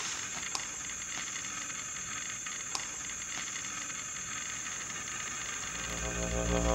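A steady high-pitched hiss with a few faint ticks, then low music swelling in near the end.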